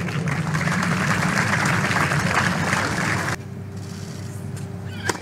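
Spectators applauding after a tennis point, a dense patter of clapping that cuts off abruptly about three seconds in. After that only quieter court ambience with a faint steady hum remains.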